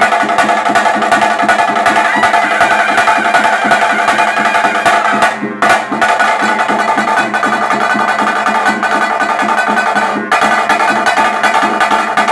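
Traditional ritual music (vadya) of a Tulu kola: fast, dense drumming with a sustained pitched melody carried over it. The melody breaks off briefly about five seconds in and again near ten seconds.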